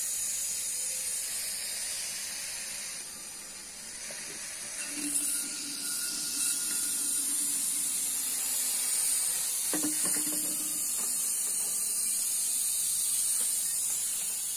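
Refrigerator compressor sucking oil in through its open line, giving a steady high hiss. There is a short knock about ten seconds in.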